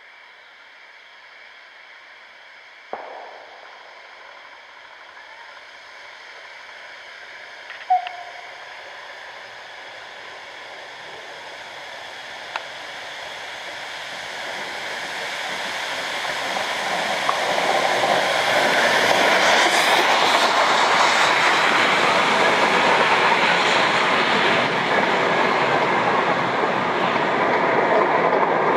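LMS 3F 'Jinty' 0-6-0T tank engine 47406 coasting with steam shut off, drawing near and running past with its coaches: wheel and rail noise growing steadily louder until the train is alongside, then staying loud. A short sharp knock about three seconds in and a brief high squeak about eight seconds in.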